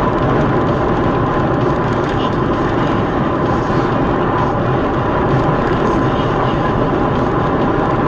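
Steady road, wind and engine noise of a car cruising at highway speed, heard from a dashcam inside the cabin, with a faint steady whine running under it.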